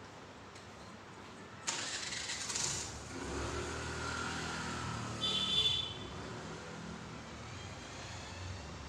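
A motor vehicle engine running, most likely a vehicle passing outside. It begins with a sudden burst of noise about two seconds in, settles into a low hum that slowly fades, and has a brief high-pitched tone about halfway through.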